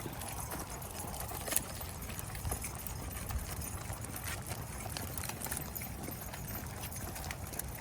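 Steady patter of footsteps from a person walking with a pack of dogs, with many small clicks scattered through it over a low rumble.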